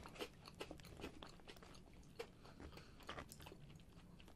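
Faint crunching and chewing of a crunchy squid-leg snack, a scatter of small crackles.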